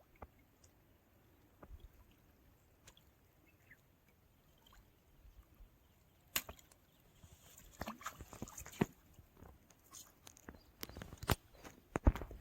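Mostly quiet at first, then a string of sharp clicks and knocks from about six seconds in, with a brief watery hiss among them.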